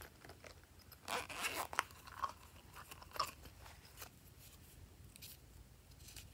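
Hands handling a silicone pop-it pouch and small blue cut-out shapes: a brief crunchy crinkling about a second in, then scattered soft clicks and taps as the shapes are set onto the slime.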